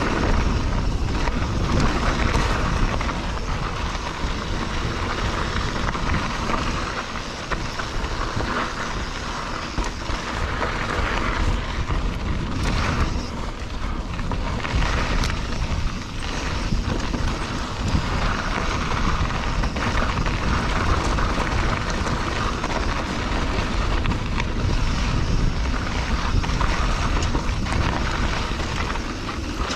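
Mountain bike ridden along a dirt trail: a steady rush of wind buffeting the handlebar-mounted microphone, mixed with tyre noise on the dirt and scattered knocks and rattles from the bike over bumps.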